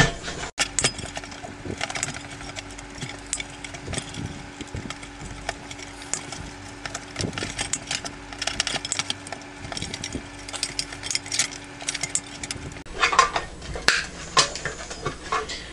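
Wire cutters snipping through the wires inside a computer power supply, a long run of irregular clicks and snaps with small metallic clatter, over a faint steady hum.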